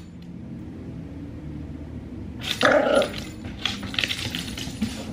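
Yorkshire terrier puppy gives one short bark about two and a half seconds in, then light clicks and taps follow as it scampers across the hardwood floor.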